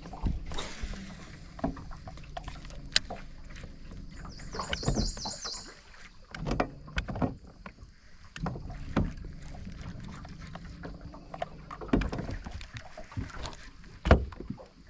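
Knocks, bumps and handling noise of fishing gear in a small boat, with a low steady hum in stretches and several sharp knocks, the loudest near the end. About five seconds in there is a brief, high, rapid ticking lasting just over a second.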